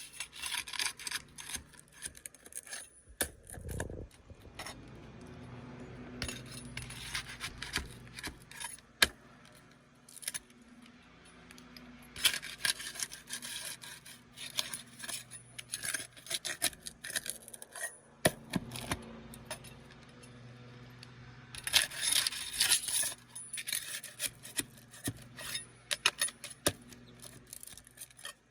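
A metal prying tool scraping and clicking against asphalt roof shingles as sealed shingles are pried up and the damaged one worked loose. It comes as a run of irregular scrapes and sharp clinks, busiest about twelve seconds in and again near the end.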